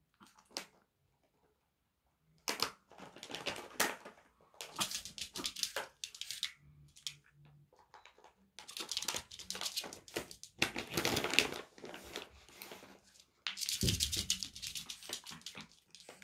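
Packaging rustling and crinkling in repeated bursts of a second or two, with a dull thump near the end.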